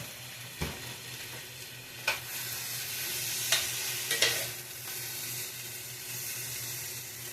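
Boiled potato cubes and onion sizzling in butter in a frying pan, with about four short knocks and scrapes of a utensil stirring them in the pan.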